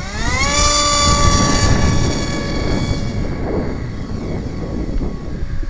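Electric motor and propeller of a small foam radio-control plane spinning up in a rising whine over about half a second at launch, holding a steady high whine, then fading after about three seconds. A loud low rumble runs underneath.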